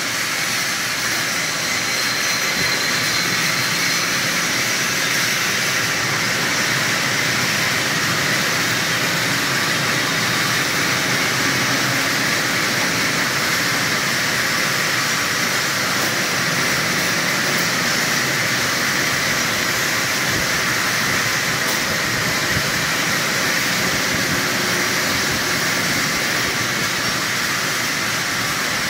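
Automatic lathes turning bolt blanks, several machines running at once: a steady, even mechanical noise with a hiss, unchanging throughout.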